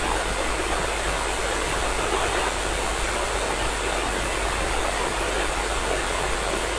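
Steady radio hiss from an FM receiver tuned to the International Space Station's 2 m downlink, with no voice on the channel: the station's signal has dropped out between transmissions, leaving open-squelch noise.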